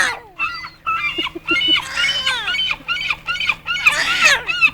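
Seagulls calling in a quick series of short, bending squawks, with louder screeches about two seconds and four seconds in.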